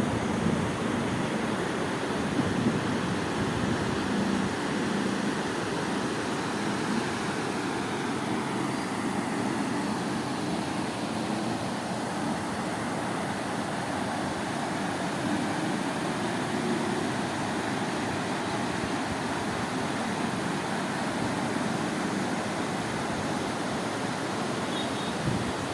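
Steady, unbroken rush of fast-flowing floodwater after heavy rain.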